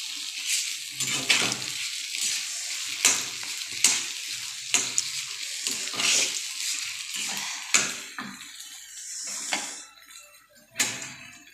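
A spatula stirring and mashing sabudana khichdi in a black kadhai, with irregular scrapes and clinks against the pan over the steady sizzle of frying. The sizzle thins out near the end.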